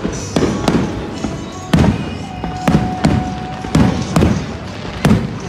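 Aerial fireworks shells bursting overhead in rapid succession, about two to three booms a second, each with a low rumbling tail.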